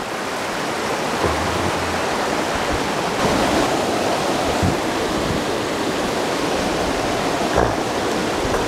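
Creek water pouring over a small, roughly three-foot waterfall and rushing through the rapids below it: a steady, even rush.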